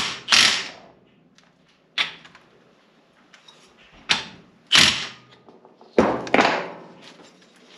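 Cordless Milwaukee Fuel impact driver running in about five short bursts, each well under a second and a second or two apart, driving bolts into a power steering pump.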